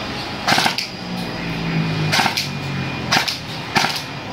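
Battery-powered airsoft M4 rifle (AEG) test-firing about four single shots at uneven intervals, each a sharp snap, some followed closely by a second click.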